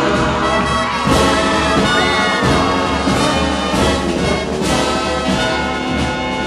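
Background music: a brass-led orchestral passage, trumpets and trombones over a steady beat.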